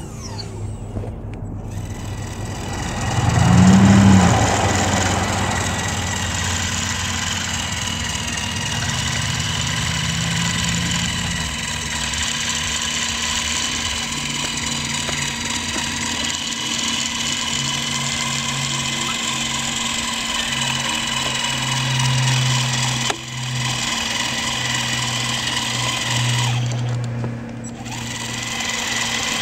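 Radio-controlled model CAT 5110B excavator running: its motors and drive gearing whine steadily as it tracks forward and swings, with a louder surge about four seconds in.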